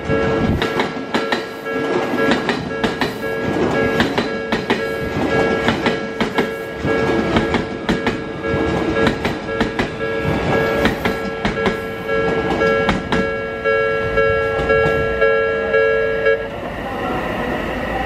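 Odakyu 3000 series eight-car electric train passing, its wheels clattering over the rail joints. A level-crossing warning bell rings steadily over it and stops near the end as the train clears.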